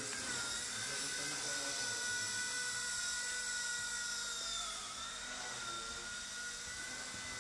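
Homebuilt mini radio-controlled gyrocopter in flight: its motor and propeller give a steady high whine whose pitch wavers slightly with the throttle, dipping a little about five seconds in and then picking up again.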